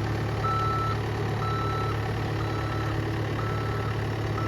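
Backup alarm of a working machine beeping steadily about once a second, each beep about half a second long, over the steady running of its engine.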